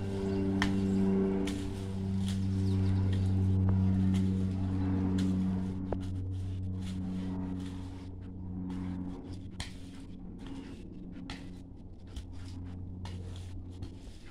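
Hand hoe chopping into soil in irregular strokes, heard as short sharp knocks, over a steady low hum that fades after about halfway.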